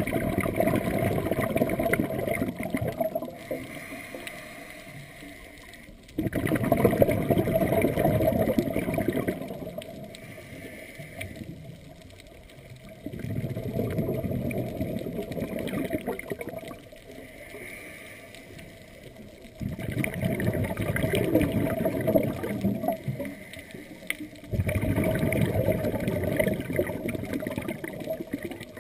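Scuba regulator breathing heard through an underwater camera housing: five long exhalations of bubbles gurgling out, each about three seconds, roughly every six seconds, with quieter hissing inhalations between.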